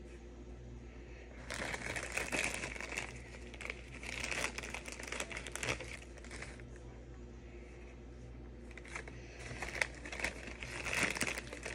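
Small clear plastic bag crinkling as it is handled and worked open, in three bouts of rustling.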